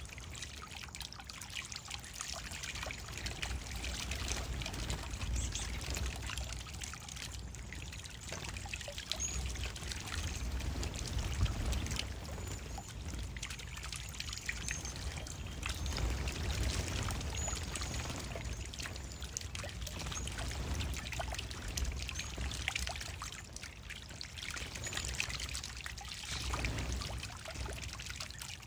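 Steady trickling and splashing of water in a bird bath as cedar waxwings drink and bathe, with scattered small splashes and brief thin high-pitched calls.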